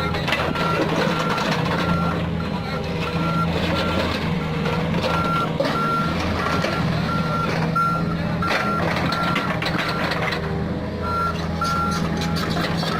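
Komatsu PC45 mini excavator's diesel engine running steadily while its travel alarm beeps at an even pace, about one and a half beeps a second, with a short break in the beeping near the end.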